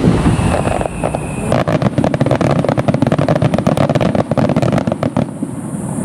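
Aerial firework shells bursting overhead with a deep rumbling boom and echo, joined about one and a half seconds in by a dense crackling of popping stars that stops abruptly near the end.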